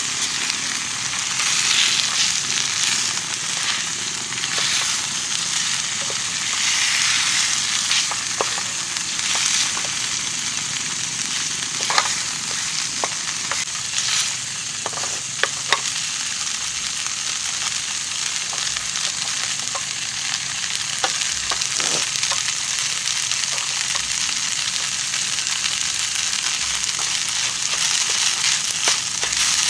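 Food frying in hot oil in a pan: a steady sizzle with sharp pops and spatters now and then.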